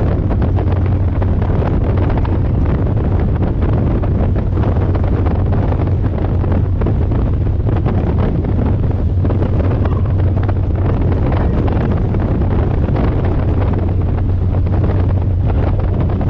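Strong wind buffeting the microphone on the deck of a moving ferry, loud and continuous, over the steady low hum of the boat's engine.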